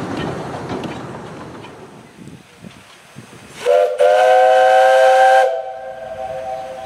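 Whistle of a 15-inch gauge steam locomotive: a short blast, then a longer one of about a second and a half, several steady tones sounding together, followed by a softer hiss of steam. Before it, the rumble of passing carriages fades away.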